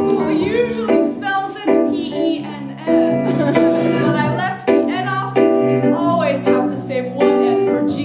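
A woman singing an improvised song through a microphone, accompanied by chords on an electric keyboard.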